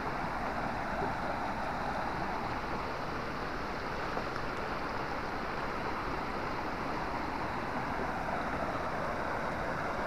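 Steady rush of a shallow, fast-flowing stream running over riffles.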